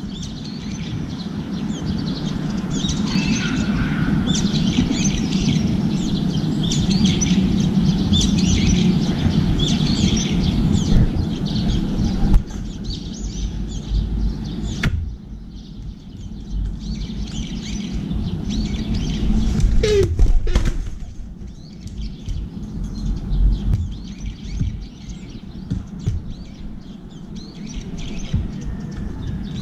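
Small birds chirping busily over a steady low hum, the chirping thinning out after about twelve seconds. A brief flurry of sharp sounds about twenty seconds in.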